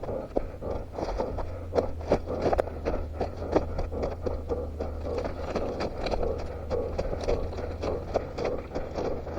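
A runner's footsteps scraping and crunching over rough ground, many quick irregular steps, over a steady low rumble.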